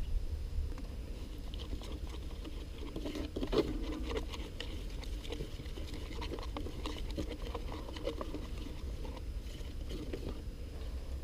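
Light rustling and many small clicks of something being handled close to the microphone, busiest a few seconds in, over a steady low rumble.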